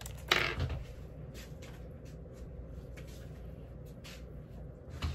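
A short rustling scrape as a person gets up from a chair, then faint light clicks and taps of a plastic container of instant noodles being handled, with a soft knock near the end.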